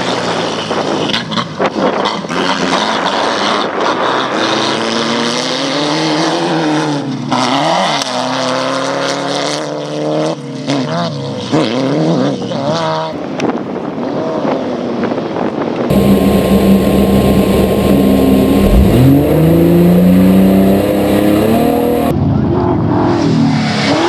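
Off-road race buggies' engines running hard, their pitch rising and falling again and again as they accelerate and lift off through the course. About two thirds of the way in the sound changes to a louder, closer engine.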